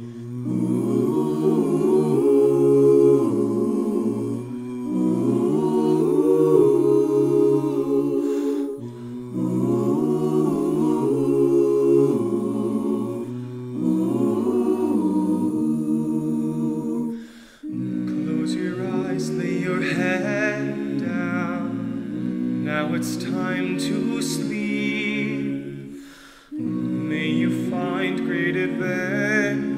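A cappella vocal ensemble singing slow, sustained chords, with brief breaks between phrases. Just past halfway a solo voice with vibrato comes in above the backing chords.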